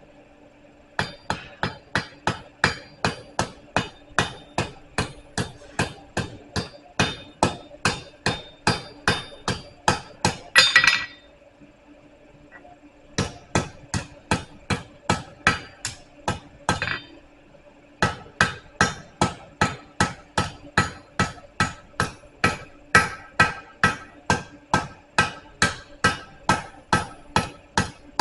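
Hand hammer striking hot steel on an anvil in a steady rhythm of about three blows a second, rounding off a tapered bar. The hammering pauses briefly twice, with a louder flurry of blows just before the first pause.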